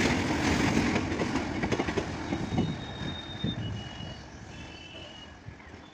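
Freight train of railway tank wagons rolling past, wheels clattering and knocking over the rail joints. The sound fades steadily as the last wagons and the brake van pass and draw away.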